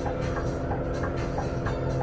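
Scania Citywide CN280UB's CNG five-cylinder engine idling with a steady low hum while the bus stands still. A light regular ticking comes about two and a half times a second.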